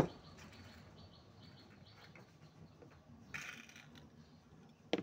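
A sharp knock as a plastic bottle is set down on a wooden table, followed by faint, rapid high chirping in the background. A brief rustle comes about three and a half seconds in, and another sharp click comes near the end.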